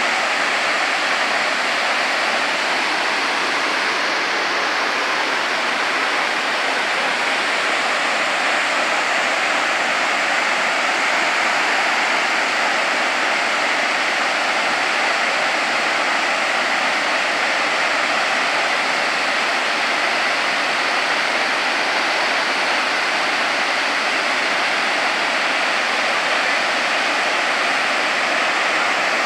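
The Kravica waterfalls' many cascades pour into the pool below, making a steady, even rush of falling water.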